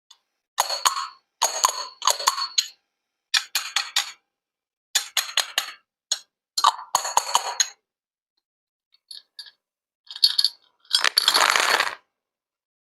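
Small hard objects clinking and rattling in six short clusters of quick ticks with a bright ring, separated by dead silence. Near the end comes a fainter few ticks, then a denser rush of noise lasting about a second.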